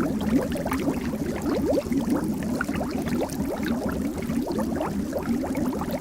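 Water bubbling continuously: a dense stream of small bubbles rising and popping, each giving a short upward-gliding blip.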